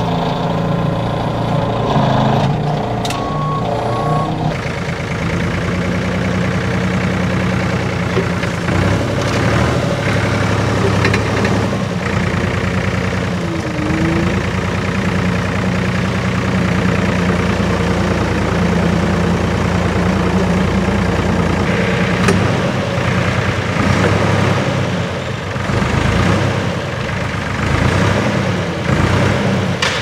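Forklift engine running under load, its note rising and falling several times as it lifts and moves bulka bags of wheat. Two short beeps sound about three seconds in.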